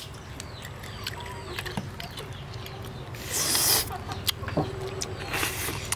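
Small clicks and taps of cooked snail shells being handled while eating, with a short hissing suck about halfway through as snail meat is sucked out of a shell.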